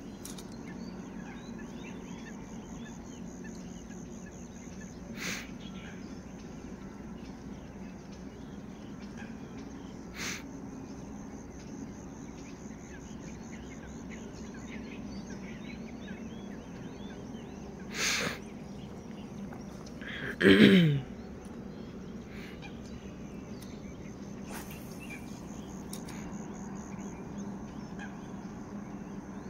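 Outdoor marsh ambience: a steady low hum with many faint scattered chirps and a few sharp clicks. About twenty seconds in comes one short, loud call that falls in pitch, the loudest sound.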